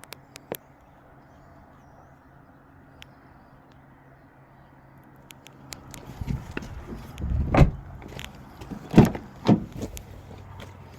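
Several heavy thumps and clunks from the 2021 Honda HR-V's doors or hatch being shut, starting about halfway through, over a faint steady hum.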